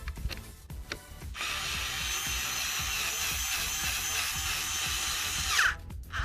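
Power drill driving in a bolt: it runs steadily for about four seconds, starting just over a second in, then stops with a short falling whine as the motor winds down. Background music plays underneath.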